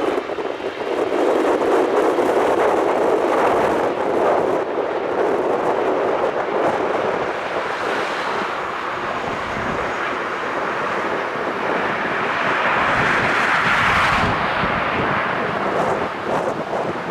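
Jet airliner engines, a steady rushing noise that swells about thirteen seconds in, with some wind on the microphone.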